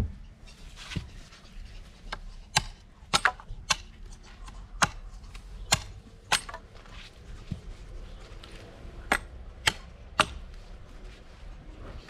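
Machete chopping small side twigs and stubs off a freshly cut branch: about a dozen sharp, irregular chops on wood.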